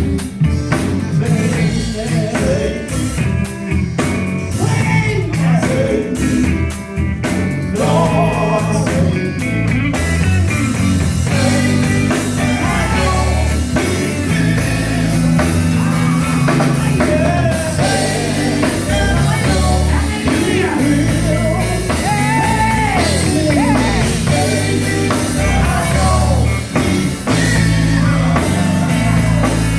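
Live gospel quartet music: a band with bass, drum kit and guitar playing on, with a singer's voice wavering over it in long runs that carry no clear words.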